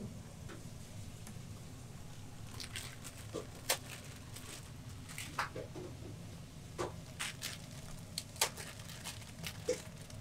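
Scattered crinkles and light taps as instant-ramen packets are handled and dry noodle blocks are set into a metal pot, over a low steady hum.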